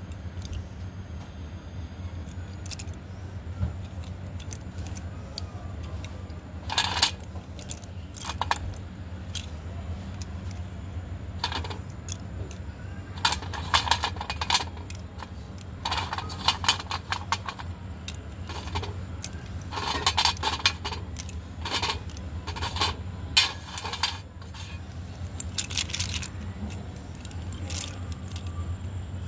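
Horse-brand slate pencils clicking and clattering against one another and on a steel plate as they are handled in a bunch, in short clusters of sharp clicks, over a steady low hum.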